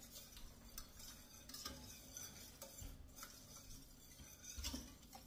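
Faint scraping and light clicks of a wire whisk stirring a creamy sauce in a stainless steel skillet.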